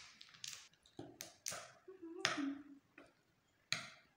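Scattered sharp clicks and taps of eating at a table: fingers handling a small piece of food over a plate, then a metal spoon knocking against the plate as rice is scooped near the end.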